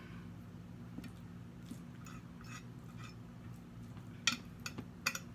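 A few light clicks and taps of tableware being handled, clustered in the second half, over a steady low room hum.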